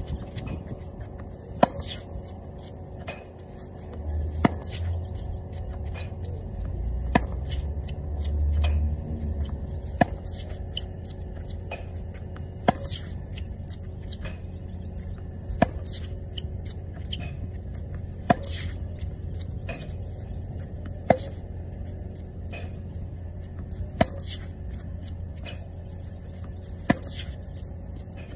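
Tennis forehands hit off a ball machine's feed: a sharp racket-on-ball pock about every three seconds, ten in all, with fainter ball bounces between.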